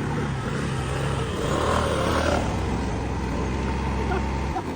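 Motorcycle engine running steadily. Its low note drops in pitch about a second in and stops abruptly just before the end.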